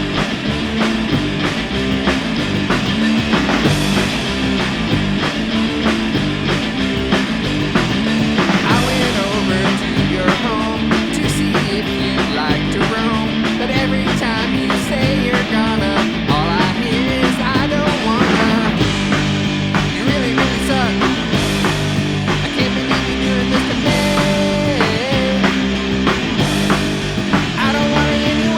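Rock band playing an instrumental passage with electric guitar, bass and drums. A lead line with wavering, bending pitch runs over the band through most of it.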